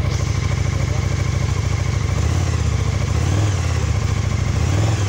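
KTM 1290 Super Duke GT's V-twin engine idling steadily in neutral at a raised cold-start idle just under 2,000 rpm.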